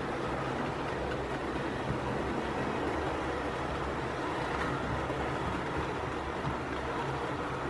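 OO gauge model train, Pullman coaches behind a Bulleid Battle of Britain class locomotive, running steadily along the layout track: an even rumble of wheels on rail with a low hum.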